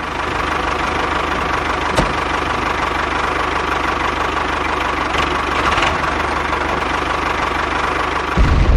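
Engine running steadily with a rough, knocking idle. There is a sharp click about two seconds in, and a louder, deeper rumble sets in near the end.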